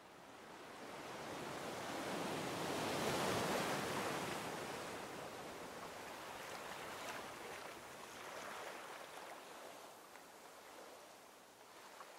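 Ocean waves breaking and washing on the shore: a rush of surf that swells to a peak about three seconds in and slowly fades, with a smaller surge later.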